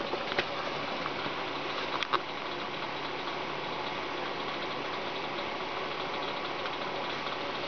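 A steady machine-like hum with a constant hiss, broken by a few short clicks in the first two seconds.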